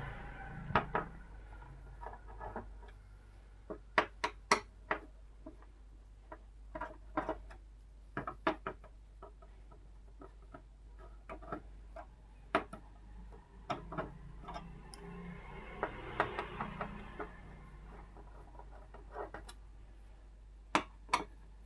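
Irregular clicks and light knocks from hands working on a TV's power supply board: the power cable and plug-in connectors being pulled and the board opened up. A quick run of clicks comes about four seconds in and two sharper ones near the end.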